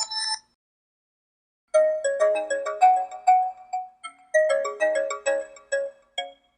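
The end of one stock HTC DROID Incredible 4G LTE ringtone cuts off just after the start. After about a second of silence the next ringtone begins: a short melody of quick, separate notes that loops, its phrase repeating about every two and a half seconds.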